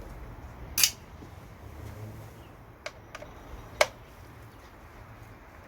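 A few short, sharp metallic clinks of hand tools and bolts being handled: two louder ones about three seconds apart, with fainter taps between, over a low steady hum.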